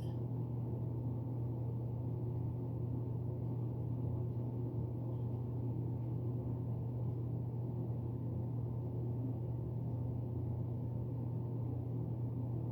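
A steady low hum that does not change in pitch or level, strongest in a deep band around a hundred-odd hertz.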